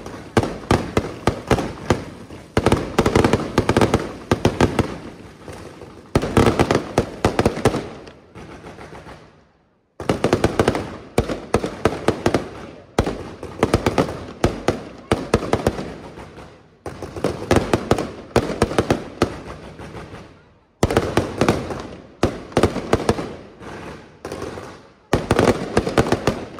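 Aerial fireworks from a La Rosa International Fireworks display: rapid salvos of shell bursts and crackling bangs, coming in waves every couple of seconds, with a short lull about nine seconds in.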